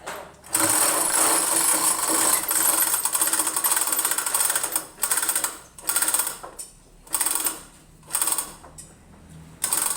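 Chain hoist rattling as its chain is hauled through to lift or lower the engine: one continuous run of about four seconds, then five short pulls about a second apart.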